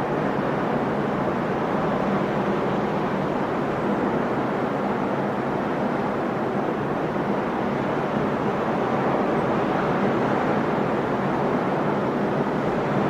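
Sea surf: waves breaking and washing ashore as a steady, unbroken rush of noise.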